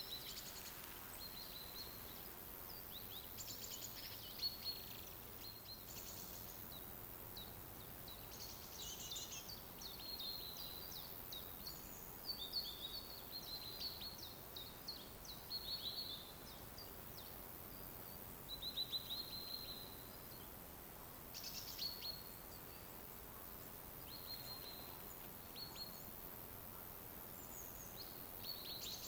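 Forest ambience: small songbirds chirping and trilling in short high phrases throughout, over a faint steady hiss.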